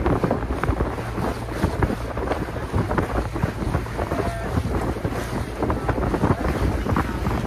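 Wind buffeting the microphone over the splash and rush of sea water against the hull of a small boat under way.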